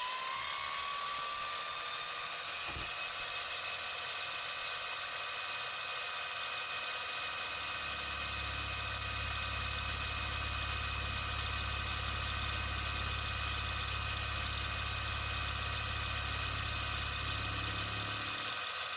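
Harbor Freight mini mill's spindle motor spinning up and then running at steady speed with a whine, while a chamfer cutter mills a chamfer along the edge of a metal clevis. A low hum joins about eight seconds in and stops near the end.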